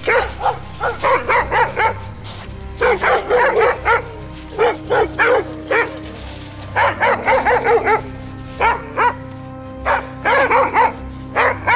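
Dogs barking in quick runs of several barks, with short pauses between the runs, over soft background music.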